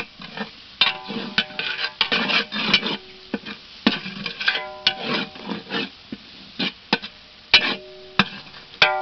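Wooden ladle scraping and stirring a thick masala in a large metal pot, in irregular strokes. Several times the ladle knocks against the pot, which rings briefly each time.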